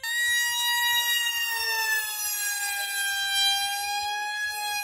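Radio-controlled model airplane's motor and propeller whining in flight overhead, a steady high whine that slowly falls in pitch.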